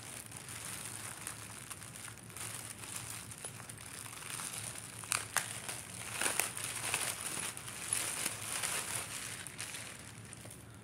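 Plastic wrapping crinkling and rustling in irregular bursts as a garment is handled and unwrapped, with a few sharper crackles about five to six and a half seconds in.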